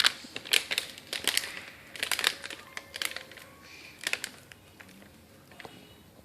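A quick run of crinkling rustles and sharp little taps in uneven bursts, busiest over the first four seconds and then dying away, from a cat batting and chasing a thrown toy.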